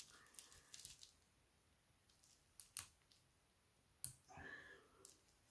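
A few faint, scattered clicks of a plastic pry tool tapping and prying at a cable connector inside an opened smartphone, with near silence between them.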